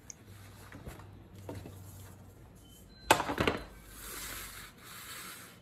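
Metal sheet pan clattering as it is set down: one sharp knock about three seconds in and a short rattle. Then a soft rustle of hands working over parchment paper and the counter.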